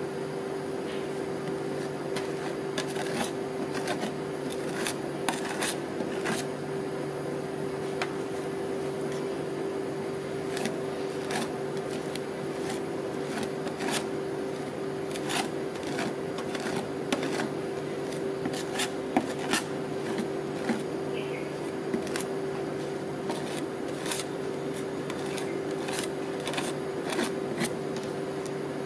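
Metal spatulas scraping, chopping and tapping on a stainless-steel rolled-ice-cream cold plate as the frozen mix is spread out, with many irregular sharp clicks over a steady hum.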